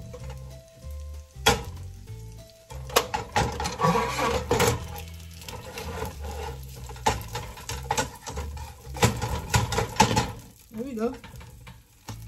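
Sausages sizzling in a frying pan while a utensil clacks and scrapes against the pan, lifting the links out, in a string of sharp clicks. Background music with a stepping bass line plays underneath.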